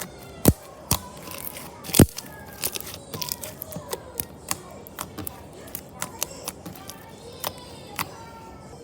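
Slime being handled and pressed, making a series of sharp pops and clicks. The two loudest come about half a second and two seconds in, with smaller ones every fraction of a second after that.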